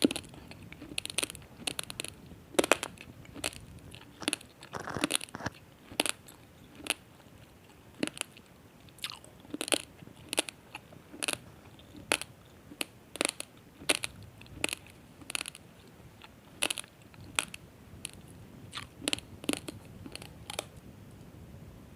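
Raw basmati rice grains crunched between the teeth: sharp, irregular crunches about one or two a second, which stop shortly before the end.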